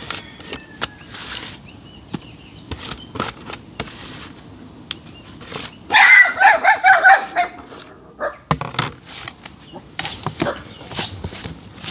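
A dog barks in a quick run of barks lasting about a second and a half, the loudest sound here, about six seconds in. Around it come soft scrapes and clicks of hands scraping mashed avocado out of a plastic bowl and working it into flour in a steel mixing bowl.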